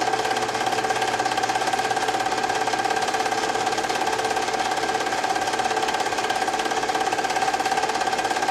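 Home-movie film projector running: a steady mechanical whir with a fast, even clatter from the film transport.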